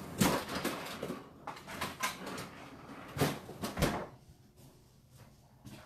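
Kitchen handling sounds as frozen goat's milk and ice are put away: rustling and several sharp knocks, with a door opening and closing, then quieter from about four seconds in.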